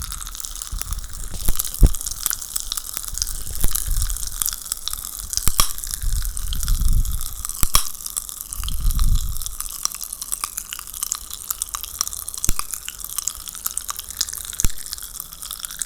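Popping candy crackling: a dense, irregular fizz of tiny sharp pops, with two brief low rumbles in the middle.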